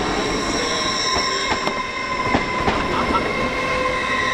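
Train running slowly on the track, its wheels squealing in several steady high tones, with repeated clicks as the wheels pass over rail joints.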